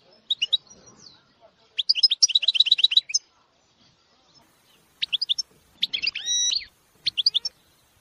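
A caged songbird singing in separate phrases: quick high chirps, then a rapid trill of repeated notes about two seconds in, and in the second half short phrases that end on held, ringing notes.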